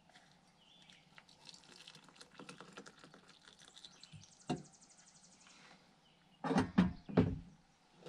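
Hot water poured from a stovetop kettle into a mug, a splashing trickle for a few seconds with a single knock partway through. It is followed near the end by three sharp, loud clunks of the kettle or mug being handled.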